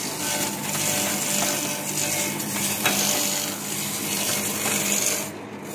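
Bamboo satay-skewer sharpening machine running with a steady motor hum, while skewers clatter lightly and a sharp click sounds about halfway through.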